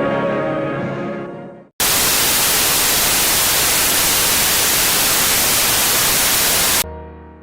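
Choral music fades out, then after a brief silence a loud burst of static hiss runs for about five seconds and cuts off suddenly. A low sustained chord follows and fades away.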